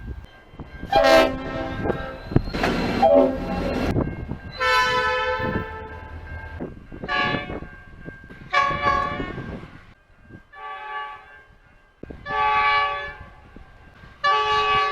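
Train horns sounding in a run of about eight separate blasts, each a steady multi-note chord, the pitch changing from one blast to the next as different horns follow one another with abrupt cuts.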